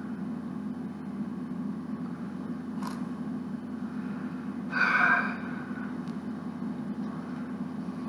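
A steady low hum throughout, with a faint click about three seconds in. About five seconds in comes a short vocal sound from the person handling the bricks, a brief grunt-like utterance.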